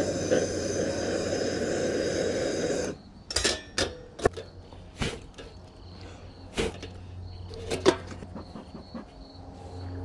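Handheld propane torch flame roaring steadily for about three seconds while lighting fuel in a bee smoker, then shutting off abruptly. After that come scattered light metallic clanks and knocks from the smoker's tin can and lid being handled.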